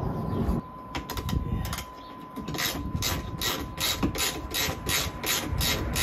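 Hand tool setting M6 rivet nuts into the van's metal body: a few clicks, then from about two and a half seconds in a regular run of about ten short noisy strokes, roughly three a second.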